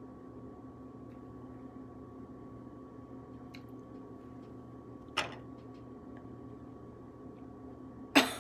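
Grapefruit peel being worked and squeezed by hand: faint small ticks and a short sharp tearing sound over a steady electrical hum, then a louder brief sharp noise near the end.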